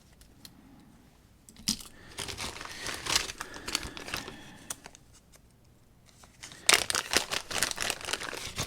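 Plastic bags crinkling and rustling as they are handled, in two spells: a softer one starting about two seconds in, then a louder one near the end.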